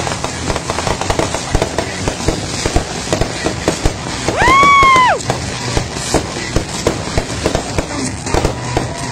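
A ground-level consumer firework cake firing fans of sparking shots, with rapid, irregular crackling pops. About halfway through, a loud tone rises, holds and falls away in about a second.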